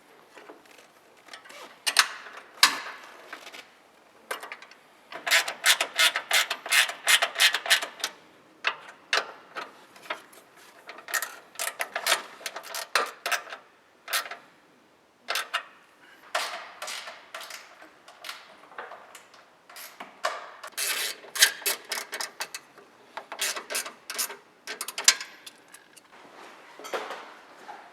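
Workshop hand tools clicking and ratcheting in bursts of rapid sharp clicks with short pauses between, the longest run a few seconds in.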